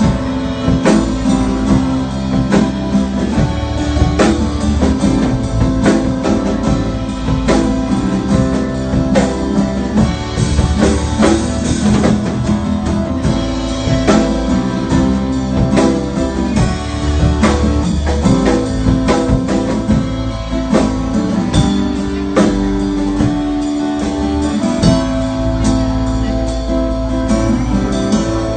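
Live band playing an instrumental break: guitars with drums keeping a steady beat.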